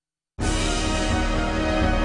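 News programme intro theme music cutting in suddenly about half a second in, after silence, with a full sound and heavy bass.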